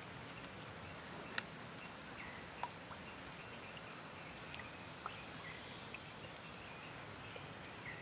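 Tropical riverside ambience: a steady background hiss with scattered short bird chirps and a few sharp clicks.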